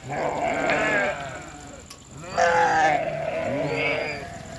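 Sheep bleating: two wavering calls, the first short and the second, starting about halfway through, longer.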